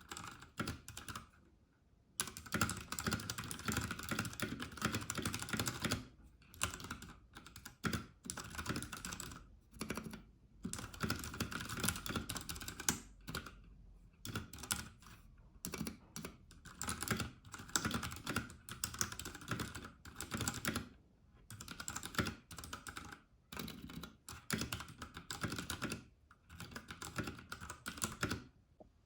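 Royal Kludge RK84 mechanical keyboard with brown switches being typed on: quick runs of key clacks broken by short pauses every few seconds.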